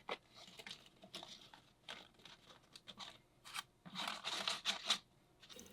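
Dry magnolia leaves crackling and crinkling as they are handled, in irregular short rustles that are loudest about four seconds in.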